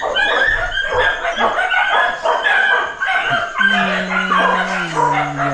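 Dogs barking and yelping in a busy, overlapping run. About three and a half seconds in, a long low drawn-out voice starts, dropping a step in pitch and holding.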